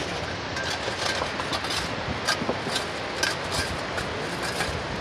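Steady rushing of water flowing down a stone-lined channel, with irregular crunching footsteps on gravel and stones, about two a second.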